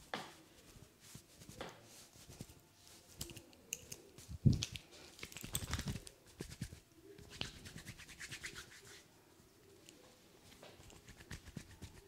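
Hands rubbing and stroking over the back and arms in a massage, brushing friction sounds with small clicks. A single loud thump comes about four and a half seconds in, then a quick run of strokes, and the sound grows quieter near the end.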